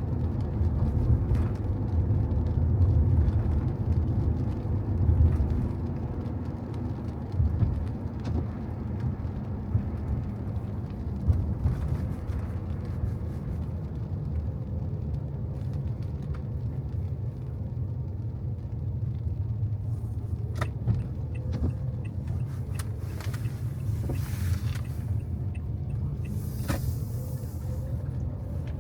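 A car driving on wet roads: a steady low rumble of engine and tyres, with a few short hisses and light clicks near the end.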